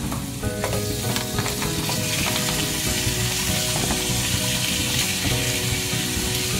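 Shrimp sautéing in a pan with margarine, onion and red bell pepper, sizzling steadily, with scattered small clicks.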